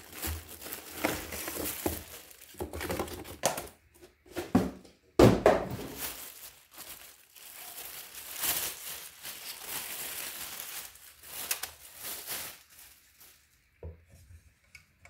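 Clear plastic packaging bag crinkling and a cardboard box rustling as a new radiator fan is unpacked by hand, in irregular handling bursts, with a loud sudden rustle about five seconds in. It quietens near the end, with a couple of light knocks as the fan is set down on the bench.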